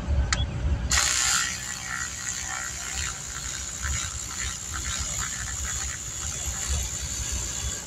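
Ratchet wrench clicking in rapid strokes as it backs out a bolt behind the radiator, starting about a second in.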